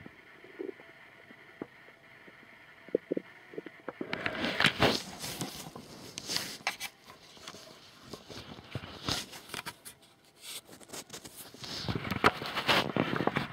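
A few faint, short stomach gurgles, then from about four seconds in loud irregular rustling and scraping, like the recorder moving against clothing or bedding close to the belly, loudest near the start of that stretch and again near the end.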